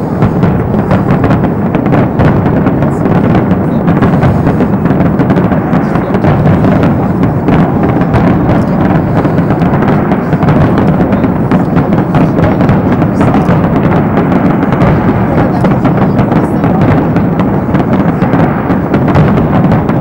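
Dense fireworks barrage: a steady, rapid run of overlapping booms and crackling bursts, loud and without pause.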